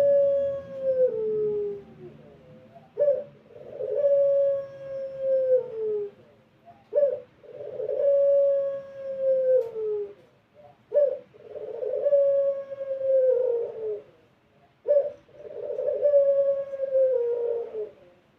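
Puter pelung, a Barbary dove bred for a long, drawn-out coo, cooing repeatedly: each coo is a short opening note followed by a long held note that drops in pitch at the end, coming about every four seconds.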